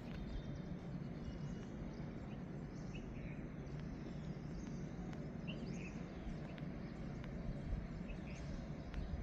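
A low, steady background rumble with a few short, faint bird chirps scattered through it.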